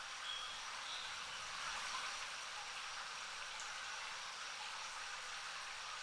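Water from a bath hand shower spraying steadily into a filled bathtub, an even splashing with no change in flow.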